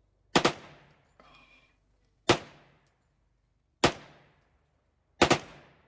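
Four single rifle shots, about one and a half to two seconds apart, each trailing off in an echo.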